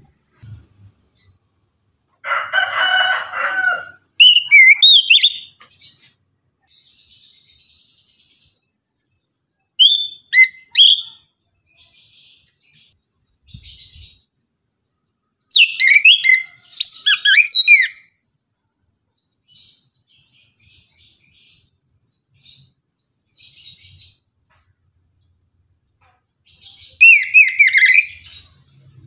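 Chestnut-capped thrush (anis kembang) singing: loud bursts of quick whistled phrases sliding up and down, every few seconds, with soft twittering in the gaps. About two seconds in comes a harsher, lower call lasting under two seconds.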